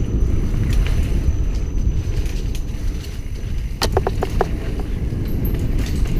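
Mountain bike riding a dirt trail, heard from a helmet-mounted camera: a steady low rumble of tyres and wind, with a quick run of about five sharp clicks and rattles from the bike about four seconds in.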